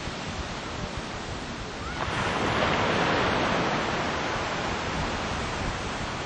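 Ocean surf breaking on a beach: a steady wash of waves, with a louder rush swelling about two seconds in, then slowly fading.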